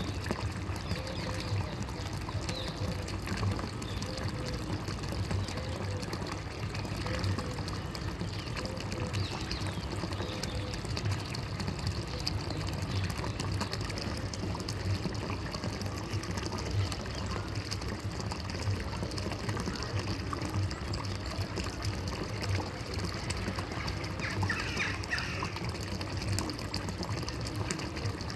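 Water flowing steadily, trickling and gurgling.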